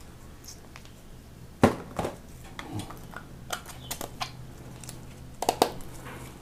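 Small containers and packaging being handled on a surface: scattered light clicks and knocks, the sharpest about a second and a half in, over a low steady hum.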